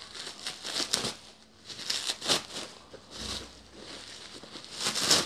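Plastic bubble wrap crinkling and rustling as hands pull it apart and crumple it, in irregular bursts of crackles.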